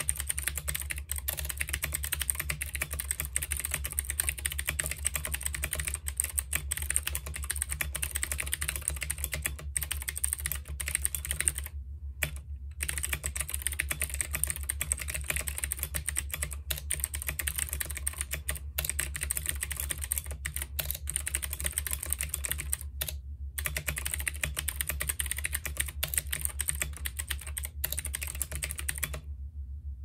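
Fast continuous typing on a Womier K66 hot-swap mechanical keyboard with unlubed Gateron Blue clicky switches: a dense clatter of key clicks, with two brief pauses and a stop about a second before the end.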